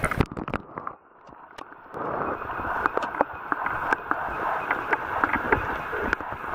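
Water sloshing and splashing over a Nikon AW100 waterproof camera as it goes under the surface in the first second. It then gives way to a muffled, steady hiss heard through the submerged camera, with scattered small clicks and knocks.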